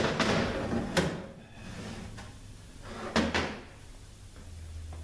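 Mercedes 722.6 transmission case being handled and set down upright on a metal workbench: sharp metal clunks at the start, about a second in and about three seconds in, with scraping and shuffling between them.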